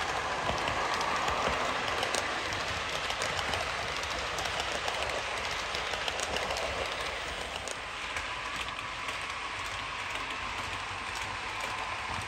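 OO gauge model train running on the layout: a TransPennine Express rake of Accurascale Mk5 coaches behind a model Class 68 locomotive makes a steady rolling noise of metal wheels on track with scattered light clicks, easing slightly about eight seconds in.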